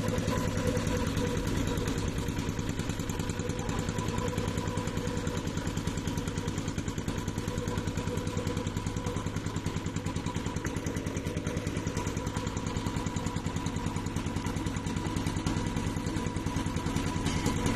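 Boat engine running steadily with a fast, even chugging pulse as the restored riverboat moves under way on a test run.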